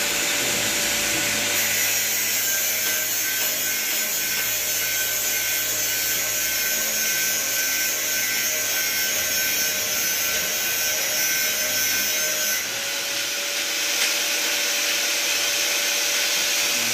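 Steady machine noise: an even, loud hiss with a faint steady whine, shifting slightly about a second and a half in and again near thirteen seconds.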